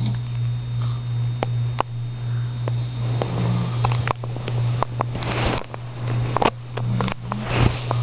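A person snoring, with two loud noisy snore breaths about five seconds in and near the end, over a steady low hum.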